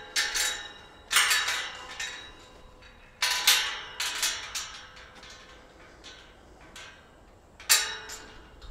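Sharp metallic clanks: about five strong strikes and a few fainter ones, each ringing briefly.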